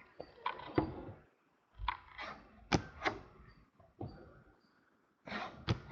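Chromium trading cards being handled and flipped through by hand: scattered short clicks and flicks as the cards slide and snap against each other.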